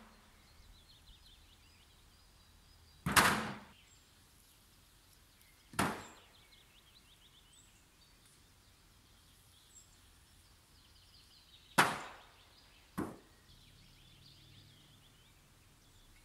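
Sharp wooden cracks from branches and logs being worked on a brush pile: four separate hits, irregularly spaced, the last two about a second apart.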